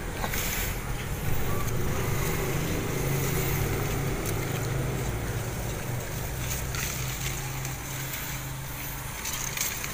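A steady low hum that wavers slightly, under a soft rustle of grass and leaves being handled at the base of a small mango seedling.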